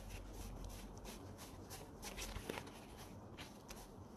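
Faint light taps and rustles of tarot cards being handled, over a low steady hum.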